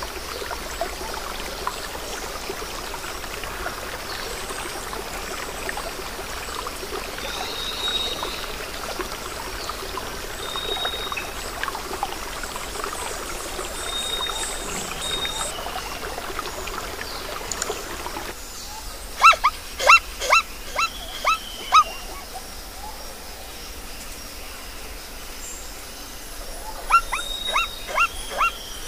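Wildlife ambience: a steady hiss with faint, short, high bird whistles every few seconds, then two runs of short, sharp, pitched animal calls, about seven in quick succession two-thirds of the way in and about five more near the end.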